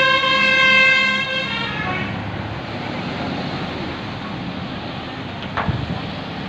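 A bus's multi-tone telolet air horn holds a chord of several steady tones, cutting off about a second and a half in. Then the engine and road noise of heavy vehicles takes over, with a brief sharp knock near the end.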